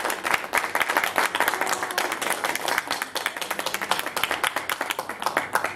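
Audience applauding, many hands clapping together; it cuts off suddenly near the end.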